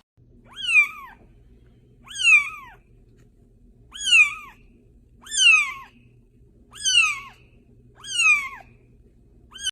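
Young kitten meowing repeatedly: six high-pitched meows, each rising then falling in pitch, about one every second and a half, with a seventh beginning right at the end.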